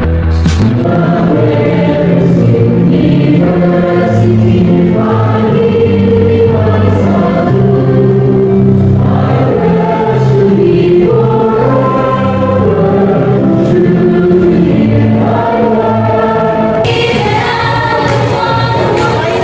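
Background music: a choir singing long held notes over a low sustained accompaniment, growing brighter near the end.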